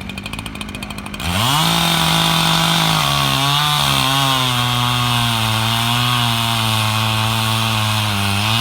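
Echo CS-7310P two-stroke chainsaw with a 24-inch bar revving up from idle about a second in, then held at full throttle through a timed competition crosscut; its pitch drops slightly as the chain bites into the log and holds steady under load.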